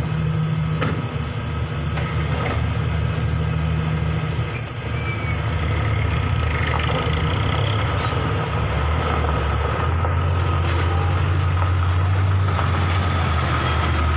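Diesel engine of a Hino 500 bulk-cement tanker truck running as the truck pulls slowly forward over gravel, getting louder in the second half as it comes close and passes.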